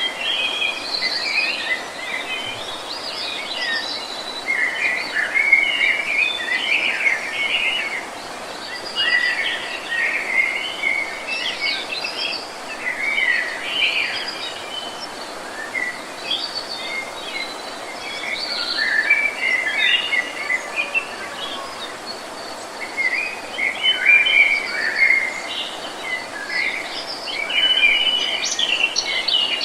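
Several birds chirping in overlapping clusters of short, quick notes over the steady noise of a running waterfall. The chirping thins briefly a few times before picking up again.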